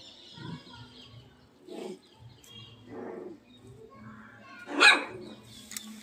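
A dog barking in short single calls, about four times, the loudest and sharpest near the end.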